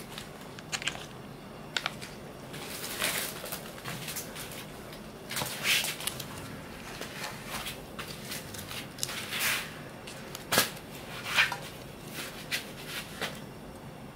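Kitchen handling sounds: scattered sharp clicks and knocks with several short rustling or scraping noises, as food and utensils are worked during cooking.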